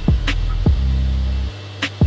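Background music: an electronic beat with deep kick drums over a sustained low bass.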